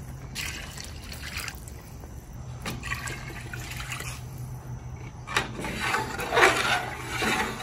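Water poured from a plastic measuring pitcher into a large pot of meat and gravy, in several separate pours.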